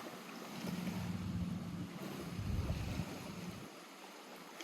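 Lake water lapping against the shore, a steady hiss, with a low rumble swelling from about half a second in and fading before the end.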